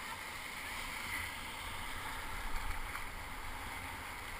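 Broken surf washing around a kayak in the breakers: a steady rush of foaming whitewater with a low rumble underneath.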